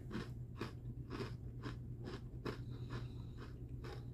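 A person chewing a hard, crunchy snack, with about two crunches a second, over a steady low hum.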